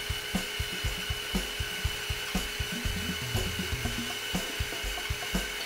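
Bandsaw with a 3/16-inch, 4-teeth-per-inch blade resawing a 2-inch-thick hardwood board freehand, the blade cutting slowly and steadily through the wood. A regular low thumping beat, with a stronger thump about once a second, runs underneath.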